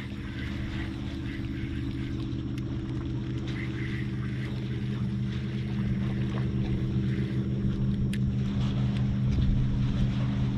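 Steady engine drone, growing gradually louder.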